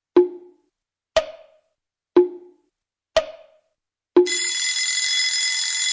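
A wall clock ticking once a second, tick and tock alternating in pitch, five strokes. About four seconds in, as the second hand reaches twelve, a bell starts ringing steadily, marking the hour.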